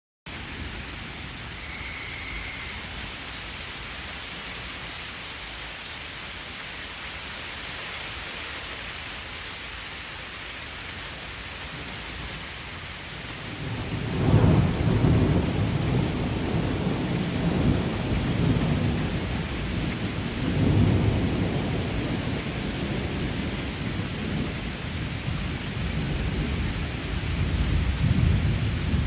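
Steady rain falling. About fourteen seconds in, a long low rumble of thunder rolls in and swells in several surges through the rest.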